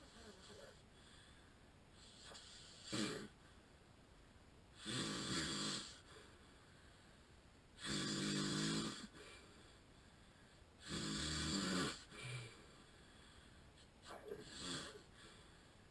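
A man with sleep apnea snoring in his sleep: five snores about three seconds apart, the middle three the loudest and longest at about a second each.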